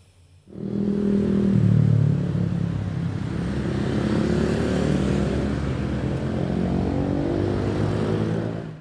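A motor engine running steadily, starting about half a second in, its pitch drifting up and down a little.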